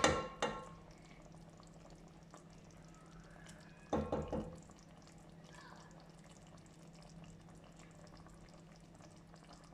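Chopped tomatoes, onion and chilli peppers frying gently in oil in a pot, a faint steady sizzle. A utensil clatters briefly against the pot near the start and again about four seconds in.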